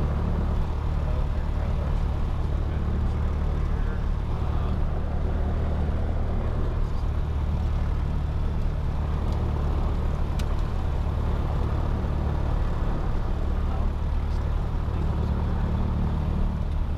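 Piper PA-28 Archer's four-cylinder piston engine running steadily, a constant low drone heard in the cockpit. One short tick comes about ten seconds in.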